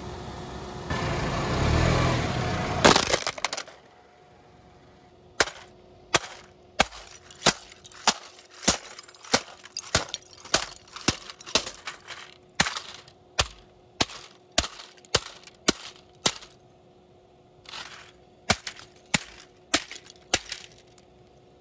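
A plastic electronic toy being smashed apart. A loud rushing crunch builds over the first few seconds and ends in a crack, then comes a long run of sharp separate cracks and snaps of breaking plastic, one or two a second with short pauses.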